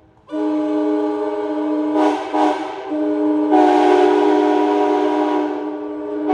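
1994 Graham White-rebuilt Nathan K5LA five-chime train air horn sounding one long blast, a steady multi-note chord. It wavers briefly around two seconds in, then swells louder and brighter about three and a half seconds in.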